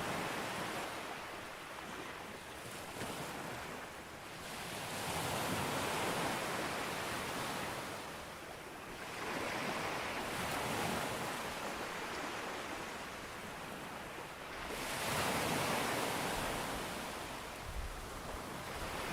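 Sea waves breaking on a beach: three swells of surf about five seconds apart, each rising and falling away into the hiss of wash.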